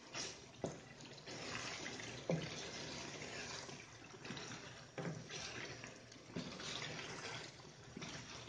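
Chicken curry masala frying in oil in a nonstick pan while a wooden spatula stirs it: a faint sizzle, with the spatula scraping the pan and knocking against it several times. The tomato liquid has cooked off, so the masala is frying in its separated oil.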